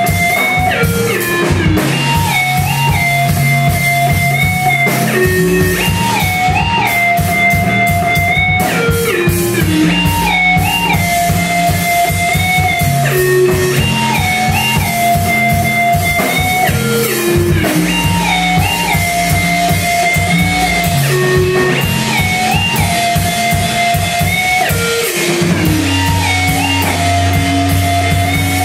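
A live band playing rock music: a drum kit beats steadily under a guitar riff that slides up and down in pitch and repeats every couple of seconds, over low bass notes. Near the end the bass settles onto one held low note.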